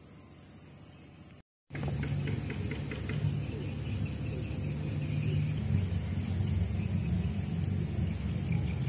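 Insects shrilling steadily in riverside forest. About a second and a half in, the sound cuts out briefly and comes back louder, with a low rumble under the insects.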